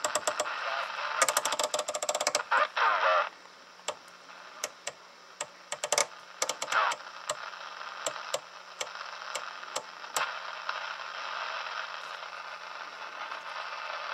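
Cobra 29 LTD ST CB radio receiver hissing with band static through its speaker while the rotary channel selector is clicked from channel to channel; sharp clicks throughout, with a fast run of them about a second in.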